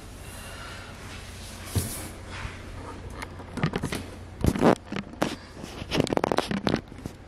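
Scattered knocks, clicks and rustling from handling a candle warmer lamp: its plug pushed into a wall outlet and its cord and in-line switch moved about on a stone countertop.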